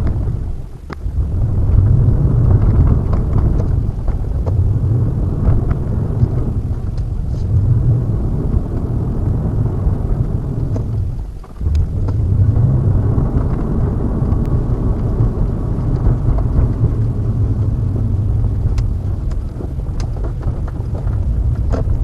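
Steady low rumble of a car driving, road and engine noise picked up by a dashcam. It dips briefly about a second in and again about halfway through.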